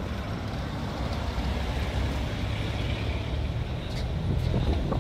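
A bus driving past on a cobbled street, its engine running with a steady low rumble.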